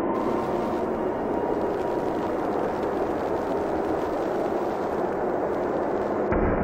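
Steady, dense rushing noise with no clear pitch. Near the end it cuts abruptly to a deeper rumble.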